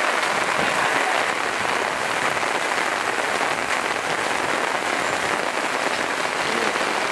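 Steady rain falling on the umbrellas and plastic sheeting held over a film camera, a dense, even crackle of drops with no let-up.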